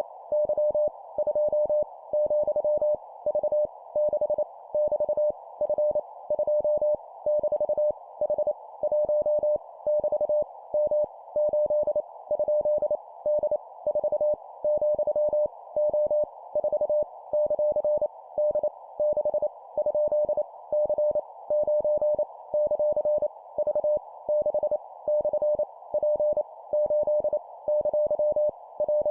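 Morse code at 25 words per minute: a single steady mid-pitched tone keyed on and off in dots and dashes, spelling random letters, numbers and punctuation. A faint hiss runs under it.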